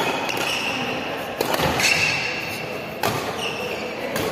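Badminton rackets striking a shuttlecock in a doubles rally: four sharp hits about a second and a half apart, echoing in a large hall. Short high squeaks come between the hits.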